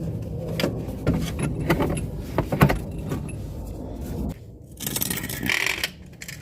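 Metal clinks, knocks and scraping of a wrench working the 13 mm nut off the alternator's power-wire terminal, with a steady low rumble underneath that stops about four seconds in.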